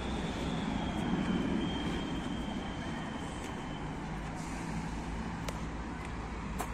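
A vehicle passing in nearby city traffic: a steady low rumble with a faint high whine that slowly drops in pitch over the first few seconds.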